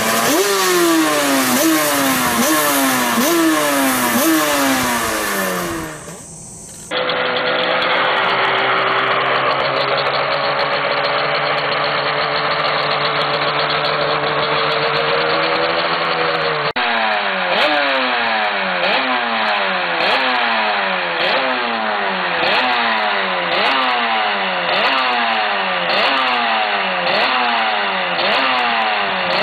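Honda NSR500 two-stroke V4 Grand Prix racing engine accelerating hard through the gears, its pitch climbing and dropping back at each upshift about once a second. About six seconds in the sound dips briefly, then the engine holds a steady pitch for about ten seconds and rises. It then cuts suddenly back to rapid up-and-down upshifts.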